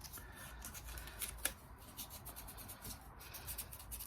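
Light rubbing and scratching with many small clicks, made by hand work cleaning around a small engine's contact-breaker points.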